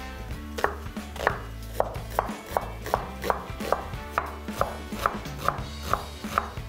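Chef's knife dicing a peeled onion on a wooden cutting board: a steady run of sharp chopping knocks, about two a second.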